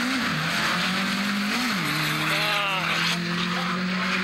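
Drag cars' engines running at the start line. One revs up and drops back about one and a half seconds in, then holds at steady revs, while a second engine rises and falls in pitch a little later.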